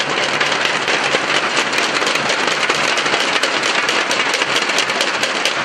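A crowd of spectators beating inflatable cheer sticks together, a loud, dense, rapid clatter of hollow claps that breaks out suddenly.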